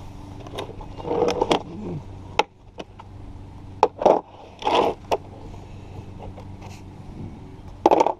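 Hard plastic socket case being handled and snapped open on concrete: a series of sharp clicks and short knocks, the loudest around four and five seconds in and again near the end.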